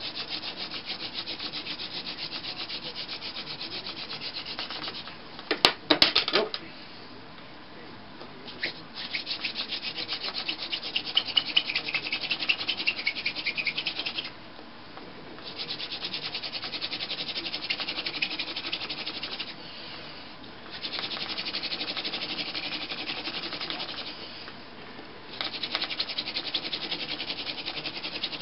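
Hand-drill fire-making: a plant-stalk spindle is spun back and forth between the palms in a cottonwood hearth board, its tip grinding in the socket with a rapid, even scraping. It comes in runs of a few seconds with short pauses between, and there are a couple of sharp knocks about six seconds in.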